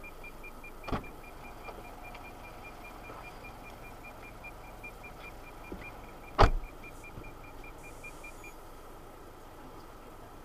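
Car driving, heard from inside the cabin: steady road noise with two sharp knocks, a light one about a second in and a loud one about six and a half seconds in. A faint high pulsing tone, about four pulses a second, runs underneath and stops near the end.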